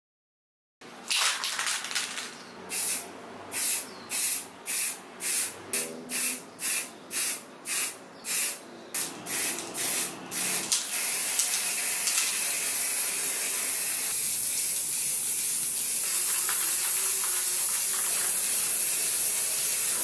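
Aerosol spray paint can: a run of short hissing bursts, about two a second, then from about ten seconds in a continuous hiss of steady spraying.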